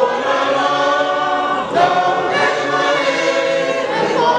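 Many voices singing a church hymn together in long held notes.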